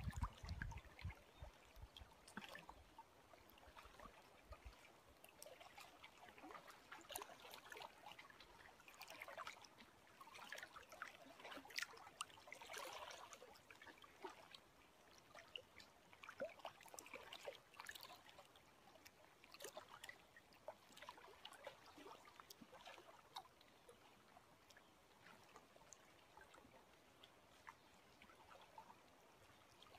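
Faint lake water lapping, with small irregular splashes and trickles coming and going.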